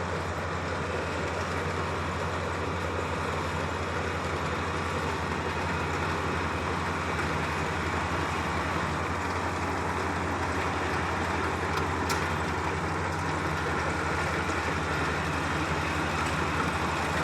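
Kubota DC-35 combine harvester's diesel engine and machinery running steadily, a continuous mechanical hum that grows slightly louder over the stretch.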